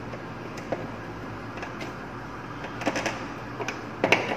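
Small clicks and knocks of gloved hands handling wires and terminals inside a metal electrical control panel, over steady low background noise. One click comes early, and a quick cluster of them comes in the last second and a half.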